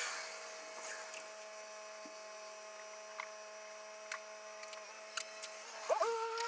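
An engine humming steadily at a constant pitch, with a few faint clicks; about six seconds in its pitch rises sharply and then holds at the higher level.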